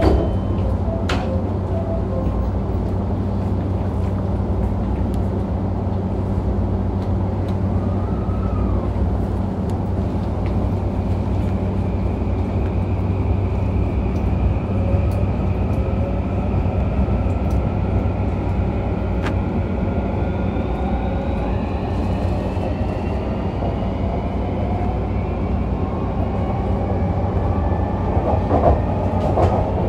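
JR East E235-0 series electric train running, heard inside the car: a steady rumble of wheels on rail under a low hum. From about twelve seconds in, the traction motors whine in several tones that rise slowly as the train gathers speed.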